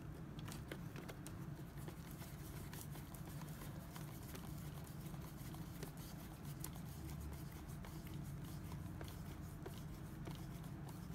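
Faint, irregular light clicks and taps of a hand screwdriver driving machine screws into a hoverboard's plastic shell, over a steady low hum.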